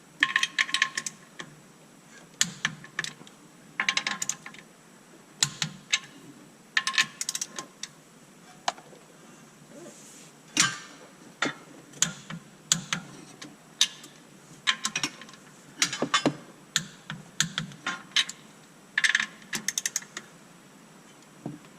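Torque wrench ratcheting and clicking in short bursts as the clutch fasteners are rechecked one after another, each click showing the bolt is at its set torque.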